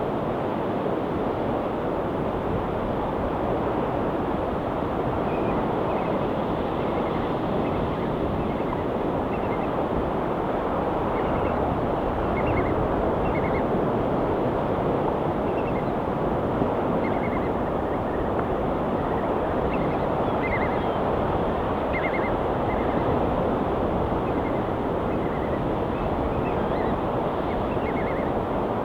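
Ocean surf in a steady, unbroken wash of noise, with faint short bird chirps coming and going above it from about five seconds in.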